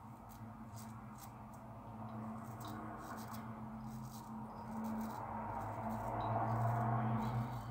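Shavette razor with a Gillette half-blade scraping through a week's stubble under soap lather, in about a dozen short strokes along the jaw and neck. A steady low hum runs underneath and swells in the second half.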